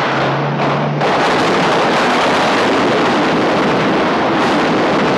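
Jeep driving off trailing thick smoke, making a loud, steady rushing noise with a low hum in the first second; its engine is running on a potent liquor instead of gasoline.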